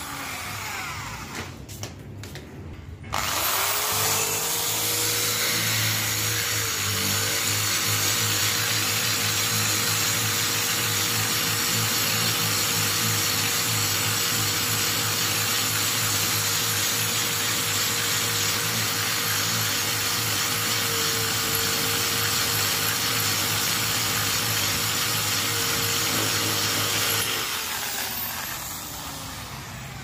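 Handheld electric drill boring a hole through a pane of glass. The motor spins up about three seconds in, holds a steady whine with a brief dip in pitch as the bit bites, and winds down near the end.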